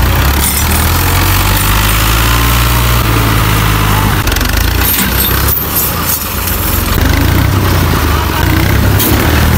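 Diesel tractor engines running steadily under load, a deep, even hum, as an Al-Ghazi tractor tows a Belarus tractor stuck in mud by a chain.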